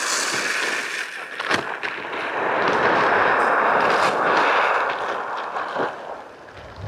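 Chicken feed poured from a feed sack into a bucket, a steady rushing hiss of grain lasting a few seconds that stops suddenly. A few sharp knocks of the sack and bucket come before it and as it ends.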